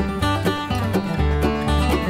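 Background music: lively plucked-string music with a steady, repeating bass line and quick regular note attacks.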